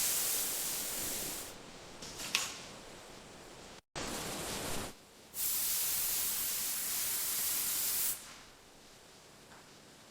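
Three bursts of hissing spray from a sprayer. They start and stop abruptly. A short, sharp scrape comes about two seconds in.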